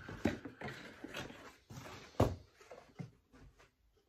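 Rustling and scattered knocks of a cardboard box and packaging being handled, with one sharper knock about two seconds in.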